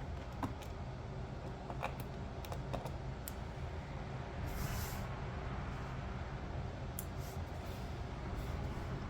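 Scattered light clicks and taps from small screws and a screwdriver being worked on a laptop's plastic bottom panel, over a steady low hum, with a brief hiss about halfway through.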